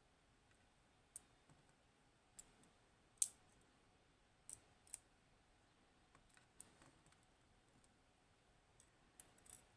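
Sparse, irregular clicks of a lock pick working the pins of a Hori Trident, a Japanese high-security lock with T-spool drivers. The loudest click comes a little over three seconds in.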